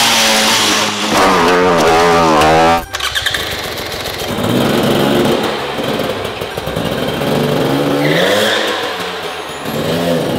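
Husqvarna 300 TPi two-stroke dirt bike engine revving up and down, cut off suddenly about three seconds in. After the cut the engine keeps running with slower rises and falls in revs.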